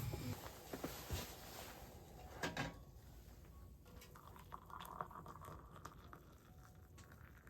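Faint scattered clinks and knocks of cookware and tableware being handled, with a small cluster of knocks about two and a half seconds in.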